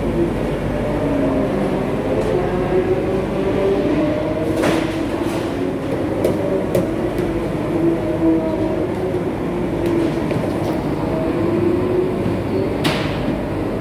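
Steady roar of commercial kitchen ventilation and equipment, with two sharp metallic clanks, one about four and a half seconds in and one near the end.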